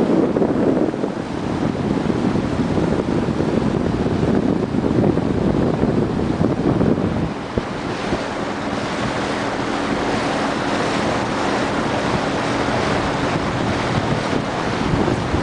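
Wind buffeting the microphone and water rushing past the hull of a small boat under way, a steady noise; a faint steady engine hum comes through from about halfway.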